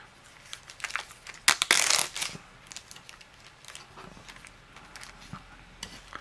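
Clear plastic zip-top bag crinkling and rustling as it is handled and opened. The loudest burst of crinkling comes about a second and a half in, with scattered smaller crackles around it.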